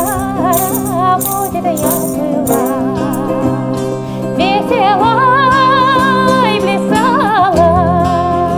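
Live folk-style music: a woman's voice sings a wordless melody with sliding notes and vibrato over sustained accompaniment from bouzouki and guitar, with a shaker rattling in the first couple of seconds.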